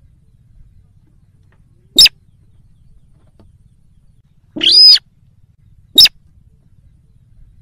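Slaty-breasted rail (sintar) calling, a recorded lure call: a short sharp note about two seconds in, a longer call rising and falling in pitch just after the middle, and another short sharp note about six seconds in.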